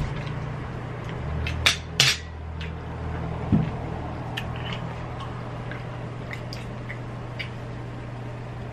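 Tableware clinking at a meal: two sharp clinks close together about two seconds in and a duller knock a moment later, then faint small ticks of eating, over a steady low hum.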